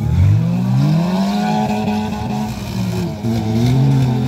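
Several stock-car engines revving hard together through a dirt corner, their pitches rising and falling against one another.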